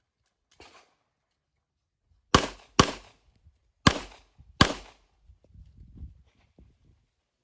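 Glock pistol shots: a faint one about half a second in, then four loud shots in two quick pairs, the second pair a little more widely spaced, followed by faint low knocking and rustling.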